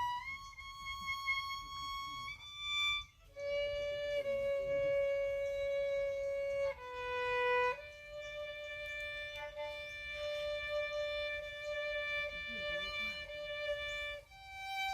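Solo violin playing a slow classical melody of long held notes, one note at a time, moving to a new pitch every few seconds.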